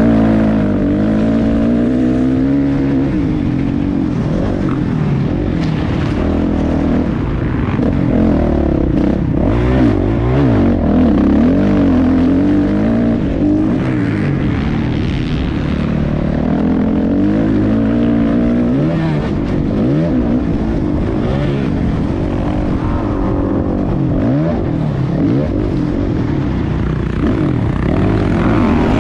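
Motocross dirt bike engine, revving hard and falling back over and over as the bike accelerates and slows around the track.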